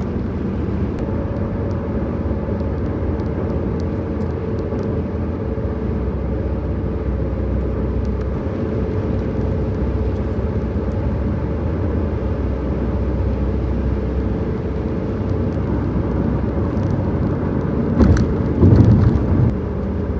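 Steady road and engine noise of a car driving at highway speed, heard inside the cabin. Near the end there is a louder burst of low rumble with crackling, lasting a second or two.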